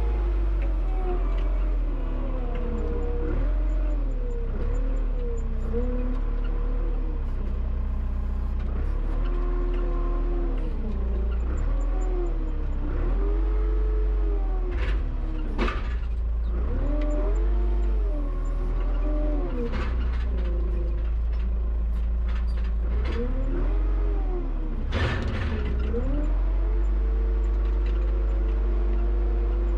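Tractor engine running under load, its pitch rising and falling again every couple of seconds as it is revved while working the front loader, over a steady low rumble. Two sharp knocks come midway and near the end.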